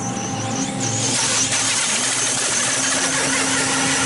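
Electric motor of a Basher BSR 4WD rally RC car on paddle tyres, whining steadily at high revs as the car hydroplanes across water. A high thin whine wavers early on, and from about a second in a steady hiss of water spray sits under it.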